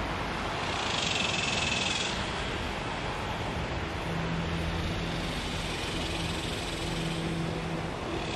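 Outdoor ambience: a steady rush of wind noise, with a distant engine humming from about halfway through.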